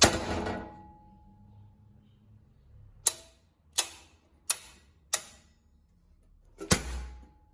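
A sharp knock with a short ringing tone, then four evenly spaced sharp clicks about 0.7 s apart, then a heavier knock with a low thud and a brief ring near the end.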